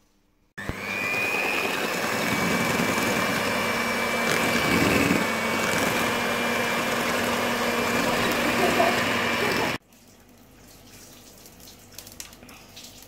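Electric hand mixer with twin beaters whipping white icing in a bowl: the motor starts suddenly, runs steadily with a high whine for about nine seconds, then stops abruptly.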